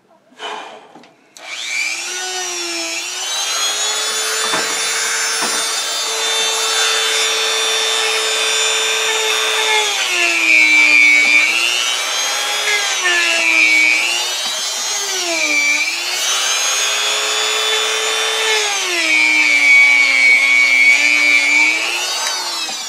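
Handheld rotary tool running at high speed with a whine. Its pitch sags and recovers several times as it is pressed against a small sewing-machine part to clean it.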